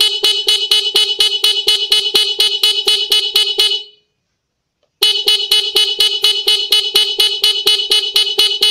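Standard motorcycle electric horn pulsed by a CR7 turn-signal flasher, sounding as a loud rapid stutter of short beeps, about five or six a second. It plays in two long runs with a pause of about a second near the middle. The flasher interrupts the horn's current, and its speed knob sets the beep rate.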